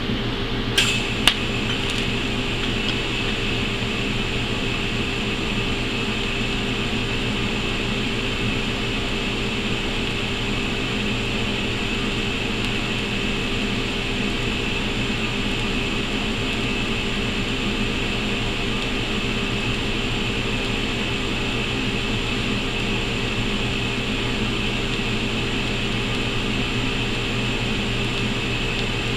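TIG welder arc on DC: a couple of sharp clicks about a second in as the arc strikes, then a steady hiss over a low hum while the bead is run with the foot pedal.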